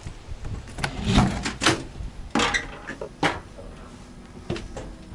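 Rear door of an aluminium truck camper being unlatched and swung open: a sharp latch click, then a run of knocks and scrapes as someone climbs inside.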